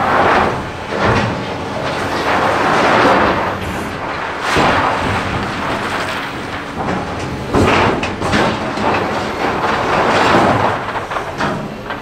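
Liebherr LH60 material handler's clamshell grab biting into crushed stone in a steel rail wagon: stones rattling and scraping against the grab and the wagon's steel sides in about five rough surges, over the machine's running engine.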